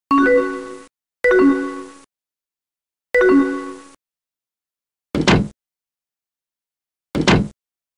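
Chat notification chime sound effect played three times in the first few seconds, each a short chord-like ding cut off after under a second. Later come two brief, different swishing sound effects about two seconds apart.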